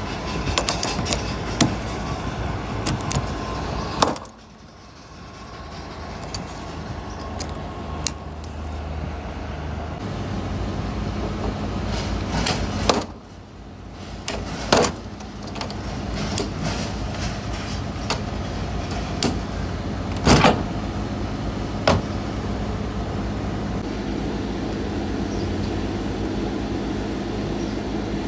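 Metallic clicks and clunks of an Airbus A320 engine cowl's push-release latches being opened. There is a sharp click about four seconds in and several more between about twelve and twenty-two seconds, over a steady machinery hum with a low constant tone.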